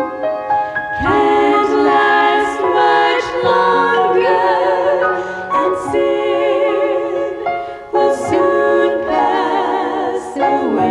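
Women singing together in harmony, holding long notes with vibrato, with short breaths between phrases.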